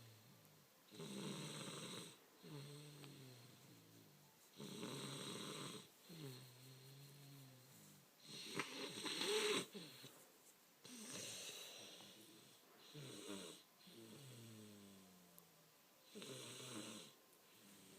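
Steady snoring, a breath cycle roughly every three to four seconds: each cycle is a rasping snore followed by a breath whose tone falls in pitch. The loudest snore comes about nine seconds in.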